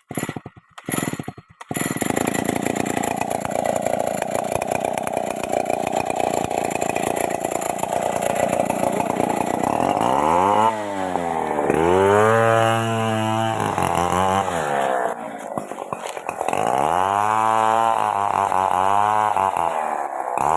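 Stihl MS 381 two-stroke chainsaw: a few short sputters in the first second and a half, then it runs steadily. From about ten seconds in it is revved up and down several times.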